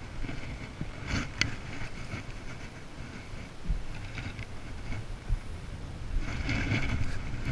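Steady low wind rumble on the microphone, with a couple of sharp clicks about a second in and a louder rustling patch near the end, from handling fishing gear on the boat deck.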